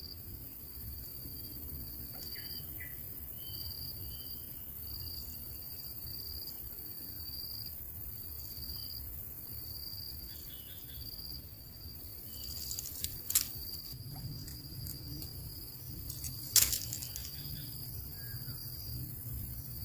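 Insect chirping, a steady high trill in regular pulses, over a low background rumble. Two sharp clicks come about two-thirds of the way through, the second louder.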